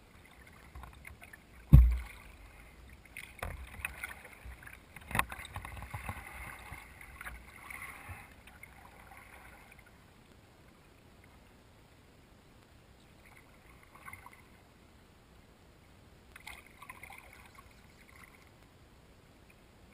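Kayak paddling: water splashing and dripping off the paddle blades, with a loud thump about two seconds in and a couple of lighter knocks over the next few seconds. The splashing dies down after about eight seconds, leaving faint water sounds with two brief splashy spells near the end.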